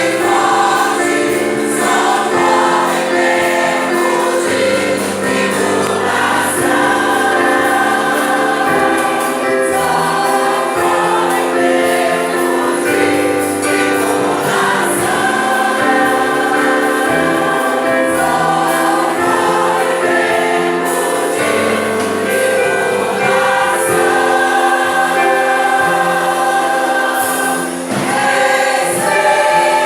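Choir singing a Christian hymn, with sustained chords that change every second or so.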